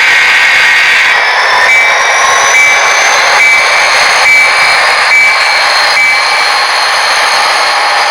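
Model train running on the layout track: a steady hiss of wheels and motor with a thin whine that rises slowly, and a regular tick about once every second that stops near the end.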